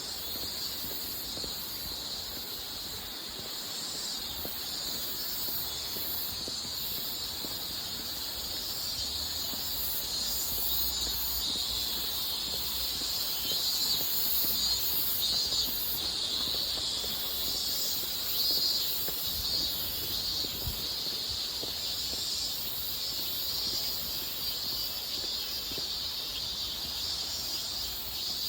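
Insects chirring in a steady, high-pitched chorus, several overlapping layers at different pitches that pulse slightly.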